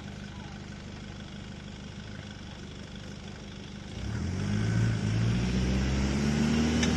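Nissan Patrol 4x4 engine running low and steady, then about four seconds in it gets louder and the revs climb slowly as the vehicle works under load over an off-road obstacle.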